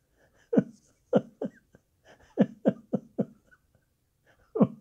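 A man laughing to himself: soft, breathy chuckles in a few short runs of quick pulses.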